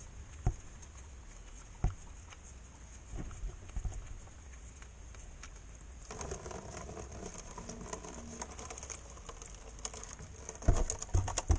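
Diesel and water pattering into a cut-down plastic canister as the fuel filter of a Chrysler Voyager 2.8 CRD is drained, the filter showing water in the fuel. Single knocks of the plastic about half a second and two seconds in, a denser patter from about halfway, and a louder clatter of knocks near the end.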